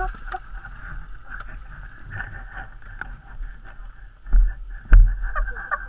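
A small motorcycle engine cuts out at the very start as the bike goes down. After that there is only low rustling and wind noise on a helmet-mounted microphone, with two heavy low thumps close together near the end.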